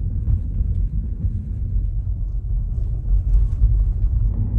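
Deep, steady rumble of a Tesla electric car's tyres and suspension rolling over a hard-packed sand beach, heard from inside the cabin, with faint scattered ticks over it.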